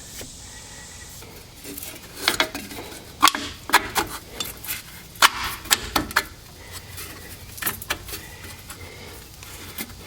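Irregular metallic clicks and clinks of a steel brake spring and tools knocking against the parking brake shoes as the shoes and top spring are worked into place by hand.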